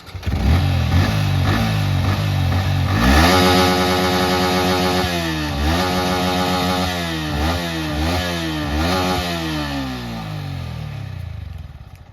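Motorcycle engine revving: the revs climb about three seconds in, then several quick throttle blips follow, and near the end the revs sink and the sound fades away.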